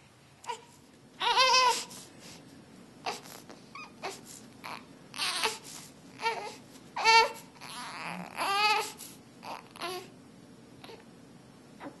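Young baby fussing: a string of short, wavering cries and whimpers. The loudest come about a second in and again around seven seconds in.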